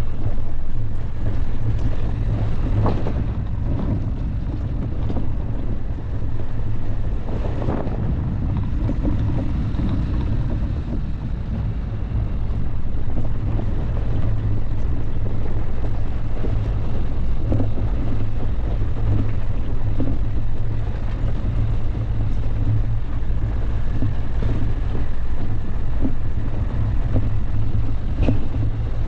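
Dacia Duster driving off-road: a steady low rumble of engine and tyres, with occasional short knocks.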